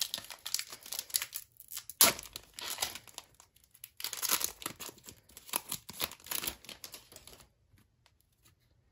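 Foil trading-card pack being torn open and crinkled by hand: dense crackling with one sharp, loud crackle about two seconds in. The crinkling stops about a second before the end.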